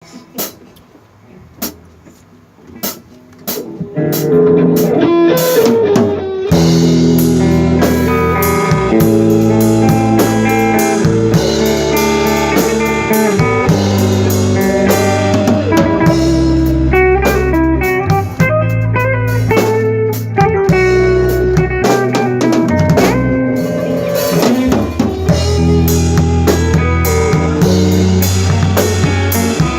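Rock band playing live in a studio, drum kit, electric guitar and bass together with a steady beat. It opens with a few sharp isolated clicks, and the full band comes in about four seconds in.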